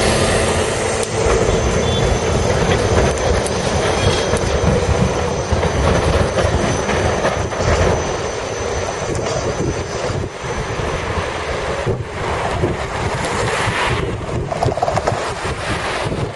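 City trams running on their rails through a street crossing, a continuous rolling rumble, with road traffic passing; cars come to the fore near the end.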